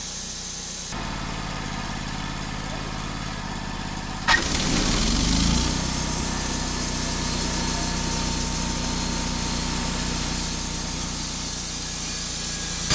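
Wood-Mizer LT35 portable sawmill's engine running steadily. The sound changes abruptly about a second in, and again at a sharp click about four seconds in, after which it runs louder.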